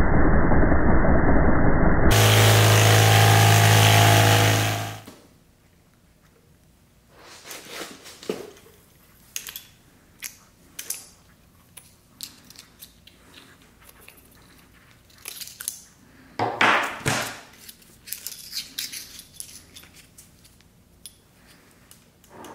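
Vibratory tumbler running with a loud, steady noise, then shutting off about five seconds in. After that come scattered rustles, clicks and small clinks as gloved hands dig the small toy hubcaps out of the granular polishing media, loudest near the end.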